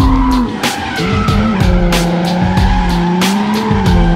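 Drift car engine held high in the revs while its rear tyres squeal and skid through a sliding corner. The engine note sags about half a second in, then picks back up and holds steady.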